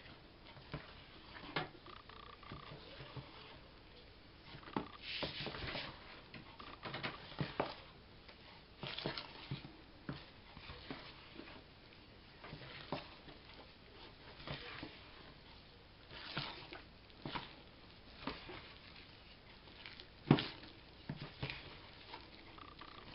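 A hand mixes and kneads soft, sticky yeast dough with flour in a plastic bowl, making irregular soft squelches and taps. There is one sharper knock near the end.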